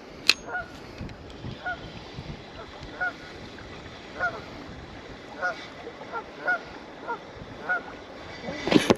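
Geese honking over and over, one short call about every second. A sharp click comes just after the start, and a short clatter of knocks near the end.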